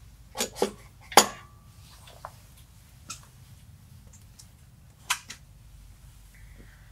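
A few sharp metal clinks and knocks from engine parts and tools being handled. The loudest comes about a second in with a brief metallic ring, and quieter knocks follow now and then.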